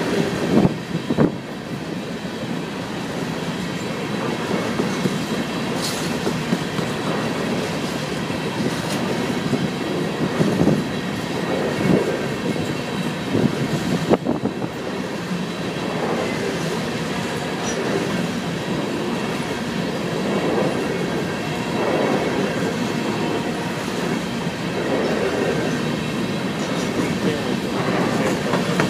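Empty coal hopper cars of a freight train rolling past: the steady running noise of steel wheels on rail, swelling every second or two as the wheel sets go by, with a faint steady high tone above it.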